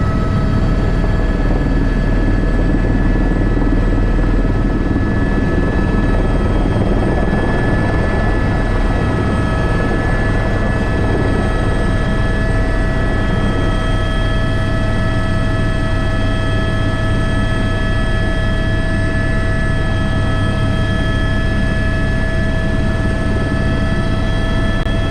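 Airbus H125 (AS350 B3) helicopter running steadily in flight: a constant turbine whine at an even pitch over the low rumble of the rotor.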